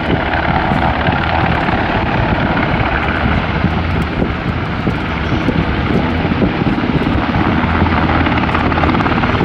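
Two Sikorsky UH-60 Black Hawk helicopters flying overhead in formation: the steady, loud beat of their main rotors over the whine of their twin turboshaft engines.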